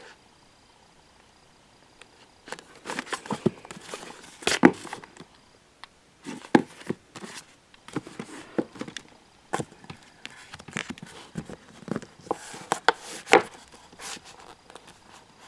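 Irregular knocks, taps and clicks of paperback manga volumes being handled on a wooden bookshelf, their spines pushed and shifted by hand. The handling starts a couple of seconds in and stops shortly before the end.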